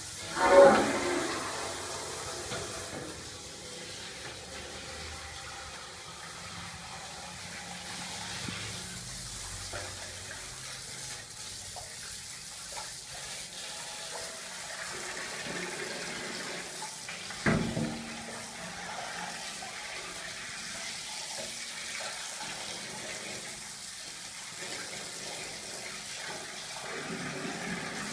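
Water running from a hose into a stainless steel stockpot and splashing as a plucked goose carcass is rinsed in it. A louder burst of sound comes right at the start, and a single sharp knock a little past halfway.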